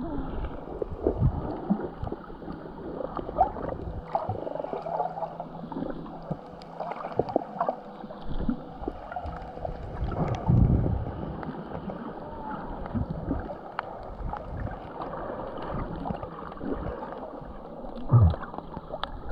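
Sea water sloshing and gurgling, with scattered small knocks and clicks throughout.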